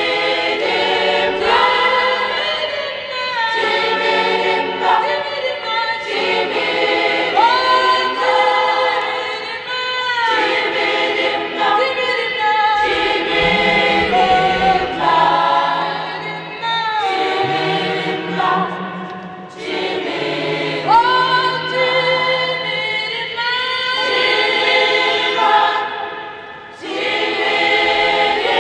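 A choir singing a gospel song in phrases of held notes, with a low line sung or played underneath.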